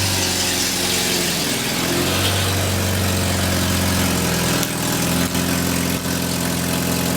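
1979 Volkswagen Rabbit's gasoline four-cylinder engine idling, the pitch sagging briefly about a second in and then holding steady. It is loud from an exhaust leak, which the owner suspects is at the manifold-to-downpipe gaskets, so loud that people take it for a diesel.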